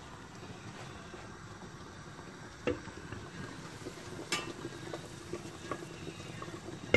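Vegetable broth simmering in the bottom pot of a couscoussier, a steady low bubbling, with two light knocks about three and four seconds in.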